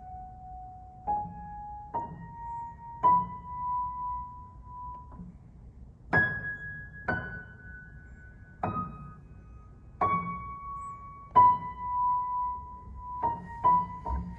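Upright piano played one note at a time in the treble, a slow simple melody of about a dozen notes, each struck and left to ring for about a second.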